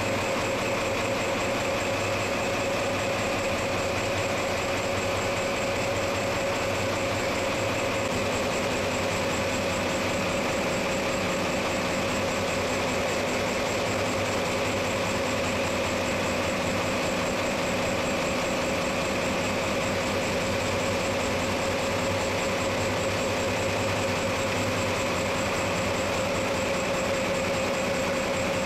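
Steady engine-room noise of a ship's running diesel engine: a constant drone with a steady higher whine over it, unchanging throughout.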